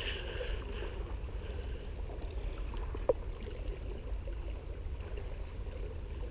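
Small waves lapping and splashing against breakwater rocks over a steady low rumble, with a sharp click about three seconds in.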